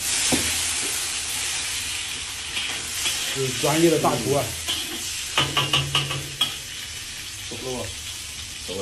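A ladle of liquid tipped into a hot iron wok of frying fish and garlic: a sudden loud sizzle that hisses down slowly over several seconds. Then the metal ladle stirs and scrapes around the wok, loudest about midway.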